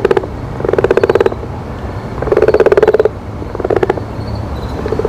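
Frog croaking: repeated rattling croaks, each a quick train of pulses lasting under a second, coming several times with short gaps.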